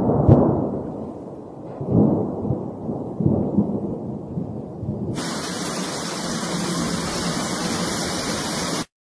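Thunderstorm sound effect: low rolling rumbles of thunder, three times, then from about five seconds in a steady loud hiss that cuts off abruptly just before the end.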